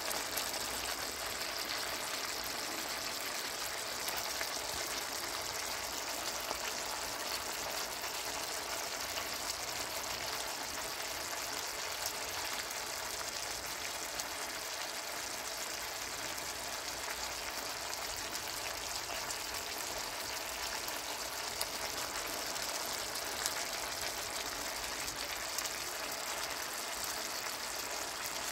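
Stew chicken bubbling and sizzling in a pan of brown sauce: a steady hiss with many small pops.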